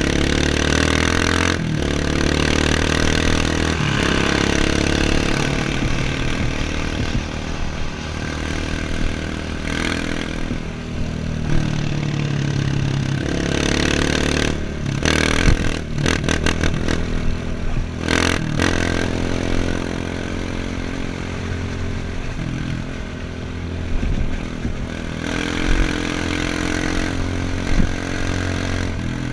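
Off-road motorcycle engine running under way, its pitch rising and falling as the throttle opens and closes. A cluster of sharp clattering knocks comes about halfway through.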